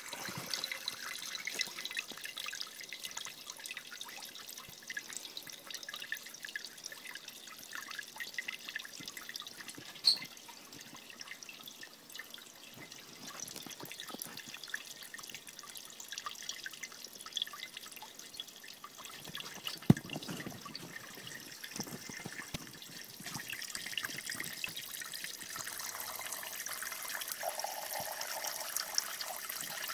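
Thin streams and drops of water from a Kelvin water dropper pattering and trickling into glass beakers, a steady fine splashing. Two sharp clicks cut through it, about ten seconds apart.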